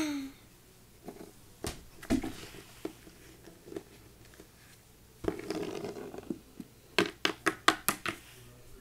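Hands moving small toys and props on a hard floor: scattered knocks and taps, a rustle lasting about a second starting just after five seconds in, then a quick run of sharp taps near the end.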